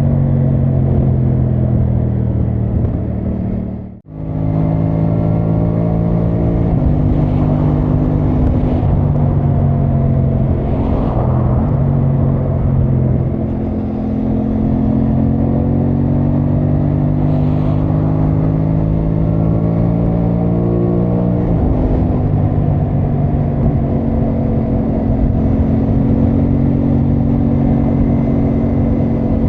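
Aprilia Tuono 660 Factory's parallel-twin engine running while riding. The engine note climbs slowly and drops in steps a few times as gears are shifted. The sound cuts out for an instant about four seconds in.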